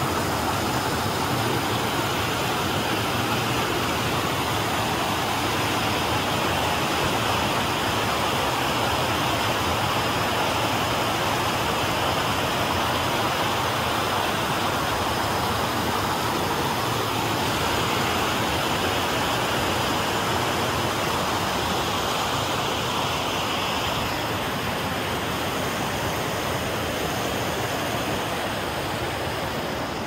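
Waterfall: water pouring and rushing steadily and loudly, easing slightly over the last few seconds.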